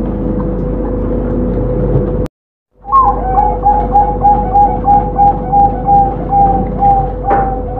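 Zebra dove (perkutut) singing: an opening note followed by a quick, evenly spaced run of about a dozen short coos, roughly three a second. The song sits over a steady background hum, and the audio cuts out for about half a second just before the song starts.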